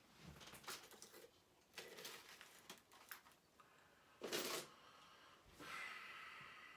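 Faint clicks and rustles of statue base pieces being handled and fitted together, with a short, louder rush about four seconds in.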